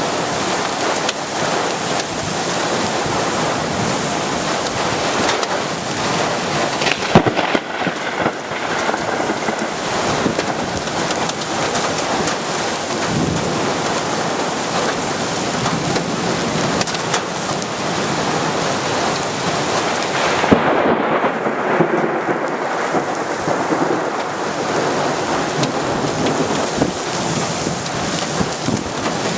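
Heavy rain pouring down steadily, with a sharp knock about seven seconds in and another a little past twenty seconds.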